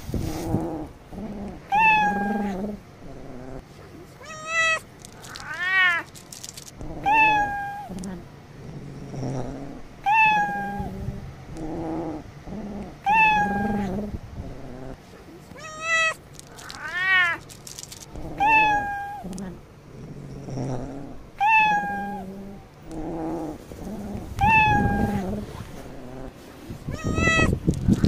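A domestic cat meowing over and over: short, high, falling meows every one to two seconds, with a few longer drawn-out meows that rise and fall.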